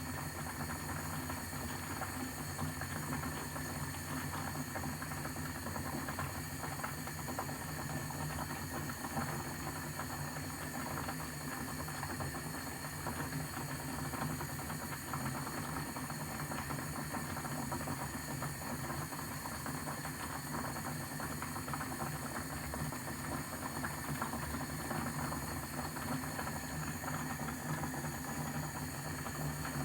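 Kettle boiling: a steady hiss of steam and churning water that holds even throughout.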